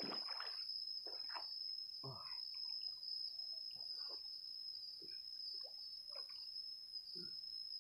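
Steady high-pitched chirring of insects, with faint, brief voices in the background.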